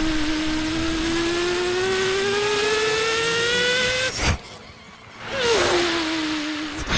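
A motor-like whine over a noisy hiss: it drops quickly in pitch, slowly rises for about four seconds and cuts off suddenly. After a short gap it starts again with the same quick drop and holds steady.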